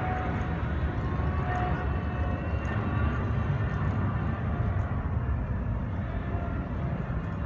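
Steady low rumble of outdoor urban background noise, with faint, slightly wavering whining tones above it.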